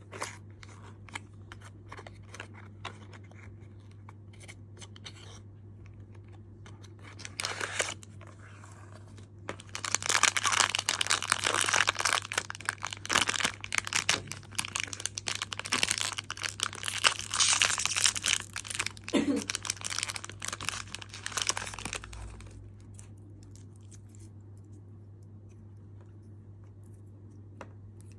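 Sonny Angel blind-box packaging being opened: light taps and clicks, then about twelve seconds of loud crinkling and tearing as the foil wrapper is ripped open and crumpled. A steady low hum runs underneath.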